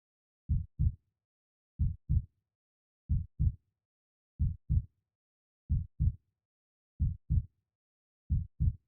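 Slow, steady heartbeat: a pair of short thumps, lub-dub, about every 1.3 seconds, with silence between the beats.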